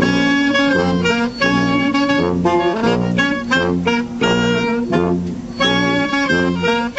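A horn band of saxophones and brass playing a lively tune in short, punchy phrases over a repeating low bass line.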